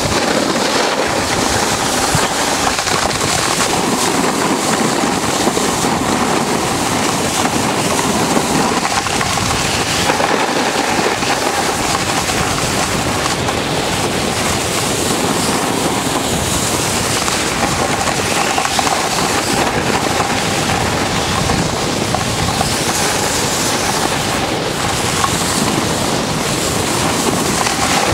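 Snowboard edges sliding and scraping over hard-packed snow in a steady, loud rushing scrape, with wind noise on the microphone.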